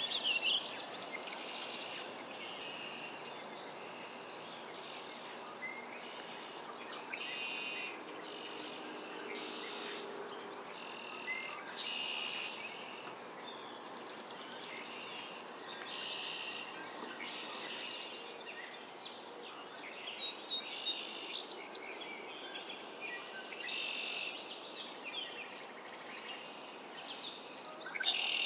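Several songbirds singing together in a spring swamp chorus: short, high song phrases overlap one after another every second or two, over a steady background noise.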